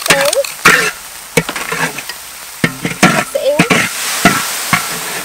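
Chili paste sizzling in hot oil in a wok while a metal spatula stirs and scrapes it, with repeated sharp scrapes and clinks of the spatula on the pan and a few short squeaks.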